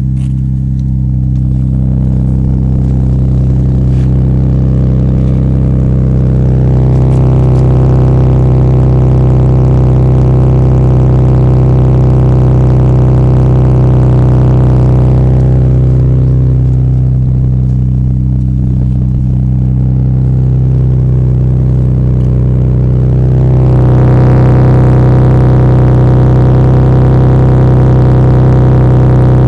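Mitsubishi VR-4 with an HKS 4-inch turbo-back exhaust, running at a steady engine speed with a deep, even exhaust drone. Twice, for several seconds, the sound grows fuller and louder while the pitch stays the same.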